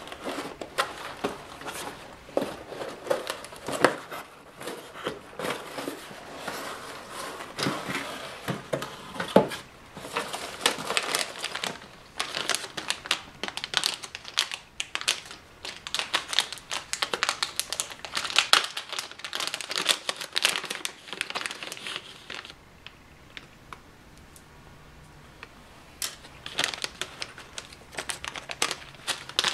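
Cardboard box being handled and opened, then hands rummaging through loose foam packing peanuts: a dense, irregular rustling and crinkling that eases off for a few seconds about three-quarters of the way through, then starts again.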